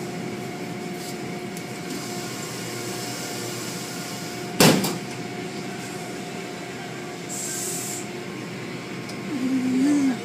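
Steady machinery hum of a car wash, with one sharp knock about halfway through and a short hiss a few seconds later.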